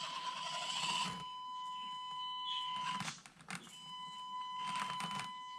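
Axial SCX24 micro crawler's electric motor and drivetrain whining on the throttle as it tries to climb a 53-degree incline: a steady high whine with gear noise. The whine cuts out for about half a second a little after three seconds in, then picks up again.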